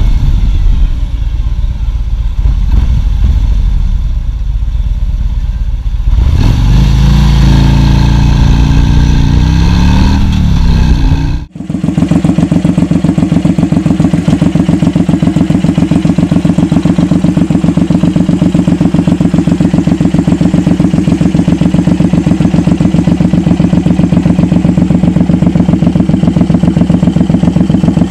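A cruiser motorcycle on the road speeds up, its engine pitch climbing in several sweeps through the gears. About a third of the way in it cuts off sharply, and a Suzuki Boulevard M109R's big V-twin idles steadily with an even, rapid pulse for the rest.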